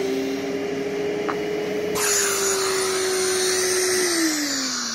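Festool dust extractor running through its hose and suction cup: a steady motor whine with rushing air, the air hiss getting louder about halfway. Near the end the motor winds down, its whine falling in pitch.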